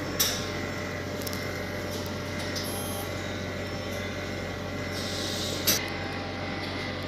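Steady machine hum and hiss of laboratory equipment running in a small room, with two short sharp clicks, one just after the start and one about two-thirds of the way through.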